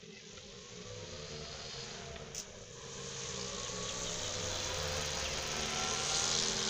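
A motorcycle engine buzzing, growing steadily louder as it approaches.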